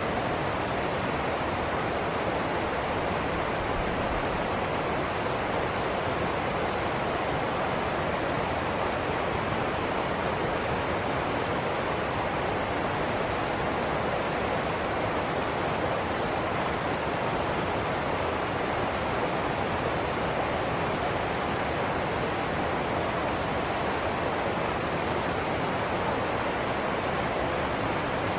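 River water rushing steadily over rocks in shallow rapids: a constant, even splashing rush with no breaks.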